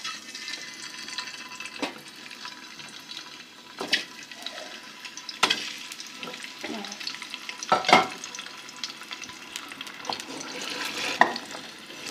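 Boiled eggs sizzling as they fry in a little hot ghee or oil in a pan, with a utensil stirring and turning them. The utensil knocks sharply against the pan about five times, loudest about eight seconds in.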